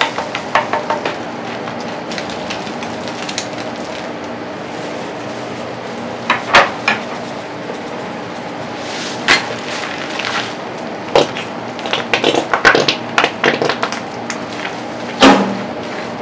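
Cooking utensils tapping, knocking and scraping on a jianbing griddle, in scattered clusters of sharp clatters, the loudest near the end. A steady hum runs underneath.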